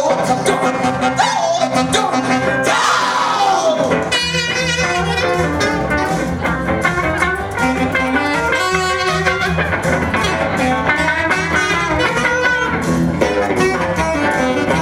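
Guitar-led music continuing without sung words, an instrumental passage of a song.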